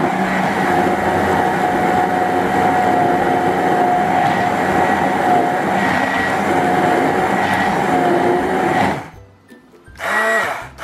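SEMP Easy MX6018 stick blender running with its blade submerged in a beaker of liquid, a steady whirring motor hum for about nine seconds that then cuts off, followed by a short second burst near the end.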